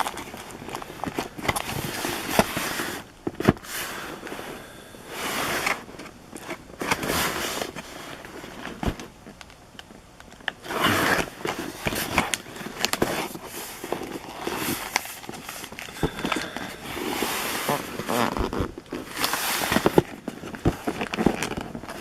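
Foil wrappers of baseball card packs crinkling and rustling as they are handled and torn open, with irregular sharp clicks and snaps of card and wrapper handling.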